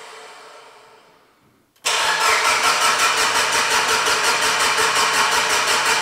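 Mitsubishi Lancer Evolution VIII's new 4G63 turbo four-cylinder being cranked by the starter without firing: a cranking sound fades out, then about two seconds in the starter kicks in again with an even, rhythmic chugging that does not catch. The owner puts the failure to start down to the Haltech ECU's trigger settings.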